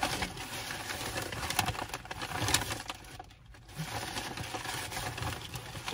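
Paper fast-food bag and wrappers rustling and crinkling: a dense crackle of small clicks that pauses briefly about halfway through.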